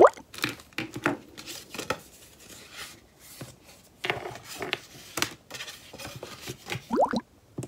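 Paper cards being handled, with irregular rustles and small taps.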